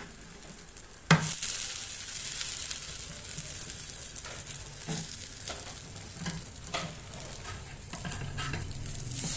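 Egg-and-milk-soaked bread slices sizzling on a flat dosa griddle as they are turned over with a steel spatula. There is a sharp tap about a second in, after which the sizzle is louder. Scattered scrapes and taps of the spatula on the pan follow.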